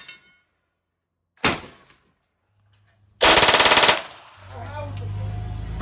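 A single shot from a Bren light machine gun about one and a half seconds in. Later, a short full-auto burst of rapid, evenly spaced shots from an Uzi submachine gun lasts under a second, and a steady low hum follows it.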